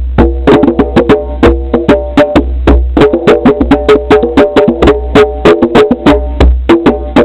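Music with a fast, busy beat of sharp clicking percussion over held chords and a heavy bass line.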